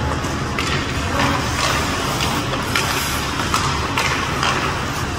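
Ice hockey play on the rink: a run of short scraping swishes from skates and sticks on the ice, about two a second, over a steady low rumble of the arena.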